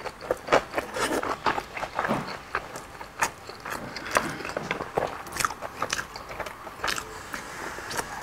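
Close-miked chewing and biting from a person eating chicken and sausage: irregular wet mouth clicks, smacks and crunches, several times a second.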